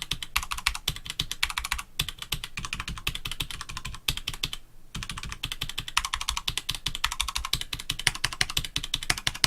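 Fast typing on a Roccat Vulcan 120 AIMO keyboard with Roccat's Titan tactile switches: a quick, continuous clatter of keystrokes with a light sound. It breaks off briefly about two seconds in and again just before the five-second mark.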